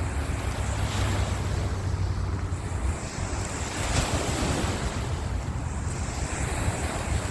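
Ocean surf washing in, with wind buffeting the microphone in a heavy low rumble.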